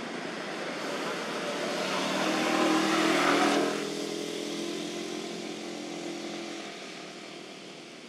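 A motor vehicle driving past. Its engine noise grows to a peak about three and a half seconds in, then fades away.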